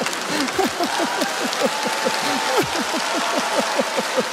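Studio audience laughing and applauding together, many voices in short falling bursts of laughter over a steady patter of clapping.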